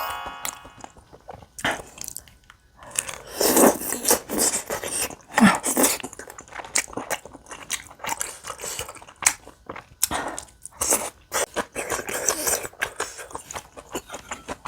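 Close-miked eating of spicy soupy tteokbokki with beef large intestine: many wet mouth clicks and chewy smacks, with a couple of longer wet slurps about three and five and a half seconds in.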